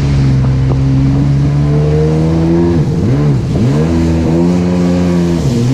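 Jet ski engine running steadily at speed. Its pitch dips sharply twice about three seconds in and comes straight back up.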